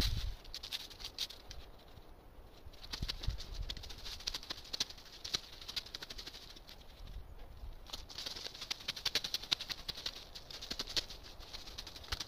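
Dry fallen leaves crackling and rustling as a hoe drags and chops through a pile of them, with brief pauses about two and seven seconds in.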